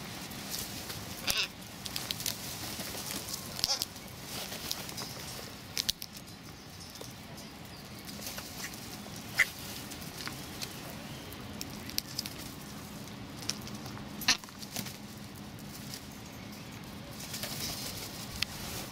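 Crows pecking at a nut on a person's knee and on brick steps: scattered short sharp taps and clicks, with a few brief crow calls.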